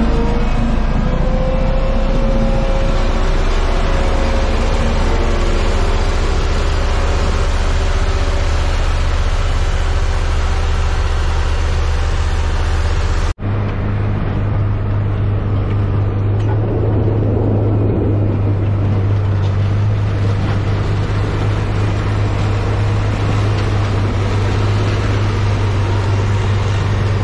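Heavy road-construction machine's engine running steadily under load, a low droning hum. About 13 seconds in the sound cuts abruptly to another stretch of the same kind of steady engine running, with a deeper, more even hum.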